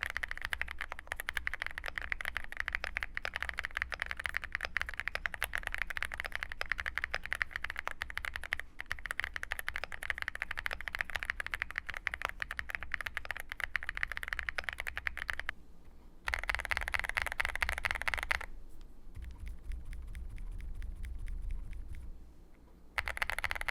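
Fast typing on a full-aluminium mechanical keyboard with linear switches: a dense, continuous clatter of keystrokes. After about fifteen seconds it breaks off, then returns in a two-second burst, followed by a quieter stretch and another burst near the end.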